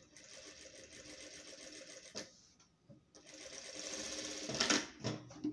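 Industrial straight-stitch sewing machine stitching through layered fabric in two runs, the second louder, with a short pause between and a few clicks near the end.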